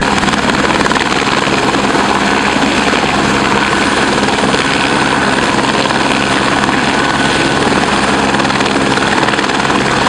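Light helicopter hovering just above the ground, its rotor and engine making a loud, steady noise.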